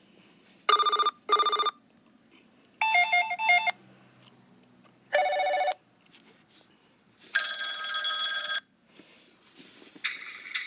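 A string of phone ringtone previews, each cut short after about a second with brief silences between: a quick double ring, then a warbling electronic tone, then a short steady tone, then a longer bright one, and another starting near the end.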